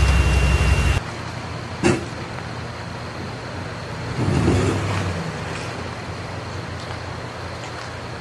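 Fast floodwater rushing across a road, loud and rumbling; about a second in it gives way to a quieter, steady rush of water. A sharp knock sounds about two seconds in, and a brief low swell comes around four to five seconds.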